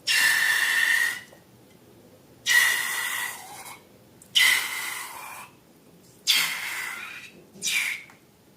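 Air hissing out of a balloon's neck in five short spurts, each starting with a thin squeaky whistle and then fading.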